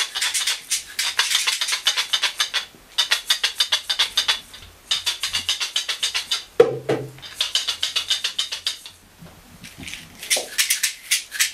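A hand shaker played in fast, even rattling strokes, in short phrases of about two seconds with brief pauses between them. One deeper drum note sounds about two-thirds of the way through.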